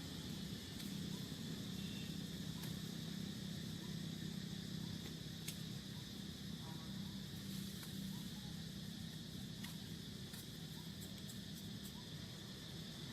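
Faint steady background of insects droning high, over a low hum, with a few small scattered clicks.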